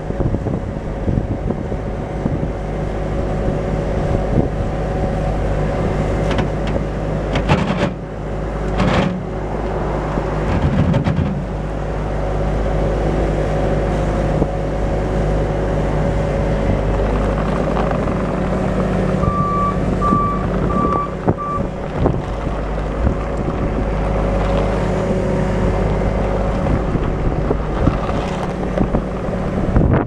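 Bobcat T770 compact track loader's Kubota five-cylinder diesel running steadily, with a couple of sharp knocks about eight and nine seconds in. About twenty seconds in, its reverse alarm beeps four times.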